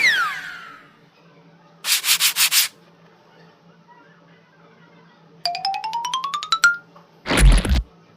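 A string of cartoon sound effects: a whistle sliding down at the start, a quick rattle of about six clicks two seconds in, a rising run of plinking notes around five and a half seconds in, and a loud low thud near the end.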